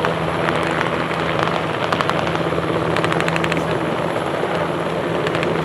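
Military transport helicopter, an NH90, flying past low with its rotor and turbines running steadily. A short run of rapid, evenly spaced rotor-blade beats comes about three seconds in.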